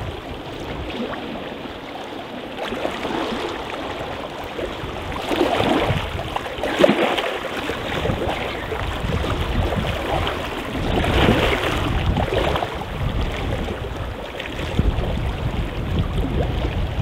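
Small sea waves lapping and washing over the shoreline rocks, swelling louder a couple of times.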